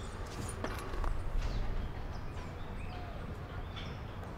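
Outdoor ambience: birds chirping with short high calls over a steady low rumble. There are a few light clicks about half a second in.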